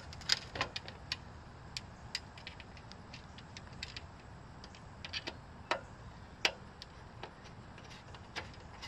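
Scattered small metallic clicks and clinks: steel screws picked up off concrete and turned by hand with a Phillips screwdriver into the joint of a metal tube, the tip ticking against the screw heads and tube.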